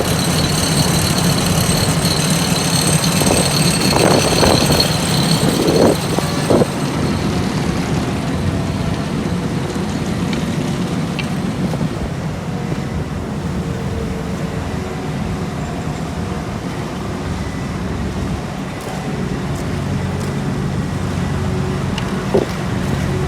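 Heavy diesel road-paving machinery running steadily. A high whine sounds over the engine for the first several seconds and fades out about seven seconds in, with a few short irregular knocks along the way.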